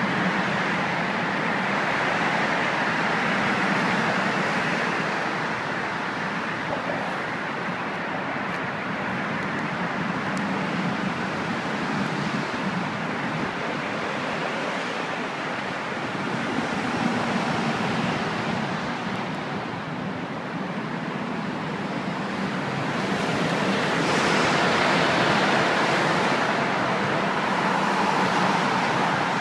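Road traffic passing close by: a steady rush of tyres and engines that swells and eases several times as vehicles go by.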